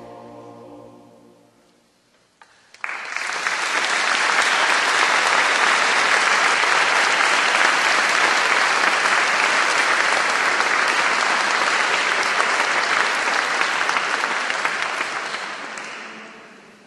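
The final chord of the choir and orchestra dies away, and after a short hush audience applause breaks out about three seconds in. The clapping holds steady, then fades out near the end.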